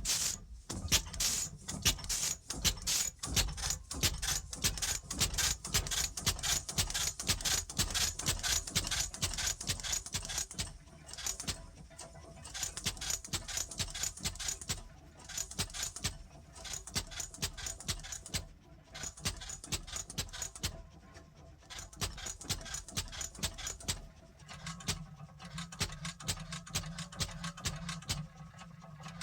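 Dense, irregular rapid clicking and rattling, thinning out about halfway through, with a low steady hum joining near the end.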